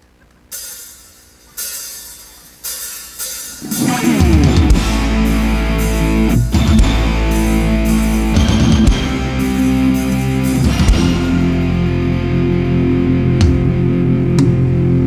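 Live rock band on an outdoor stage starting a song: three separate hits that each die away in the first few seconds, then about four seconds in the full band comes in and plays on loudly, with electric guitars, heavy bass and drum kit.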